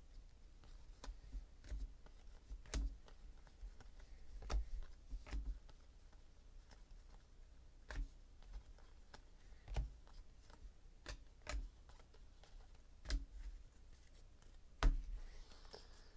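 Panini Contenders football cards being flipped through one at a time and laid onto a pile: irregular soft clicks and taps of card stock, about one every second or two, with a louder tap near the end.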